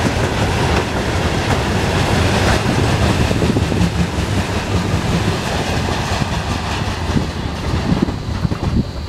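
Coal train's gondola freight wagons rolling past, steel wheels clattering over rail joints. The noise eases as the last wagon goes by and the train pulls away, with wind buffeting the microphone near the end.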